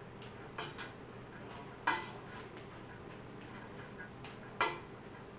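Utensil knocking and scraping against a stainless steel stockpot while tossing drained spaghetti with oil and pasta water. A few sharp clanks with a short metallic ring, the loudest about two seconds in and near the end, with lighter taps between.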